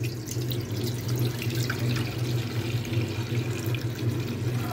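Cow's milk being poured in a steady stream from a steel vessel into a stainless steel pot, splashing into the milk already in it.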